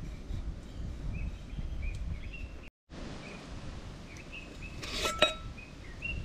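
Birds chirping in short repeated phrases over a low outdoor rumble. About five seconds in, a single metallic clink with a brief ring as the aluminium cooker's lid and pot knock together while being separated.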